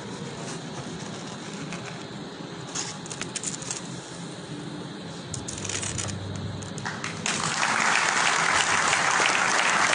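Scattered light clicks and rustles over a low hall murmur, then an audience breaks into applause about seven seconds in, loud and continuing.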